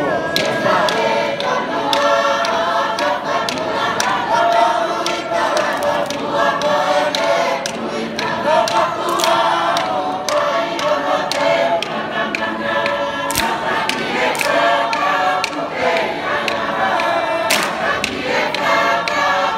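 Tongan lakalaka: a large mixed choir of dancers singing in parts without accompaniment, with sharp hand claps scattered through the song.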